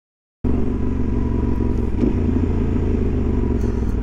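Adventure motorcycle's engine running steadily while riding, mixed with wind and road noise as heard from the rider's seat. It cuts in suddenly about half a second in, after silence.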